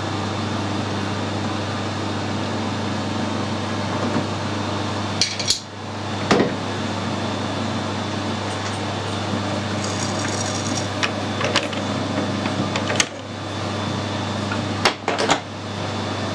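Metal clanks and knocks of a lathe chuck key and tools being handled at a metal lathe: a few sharp knocks spread through, with lighter ringing metallic taps in the middle, over a steady low machine hum.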